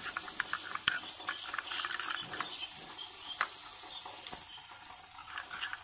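Steel spoon stirring a thick spice-and-water paste in a small glass bowl, with irregular light clicks and scrapes of the spoon against the glass. A faint steady high-pitched tone runs underneath.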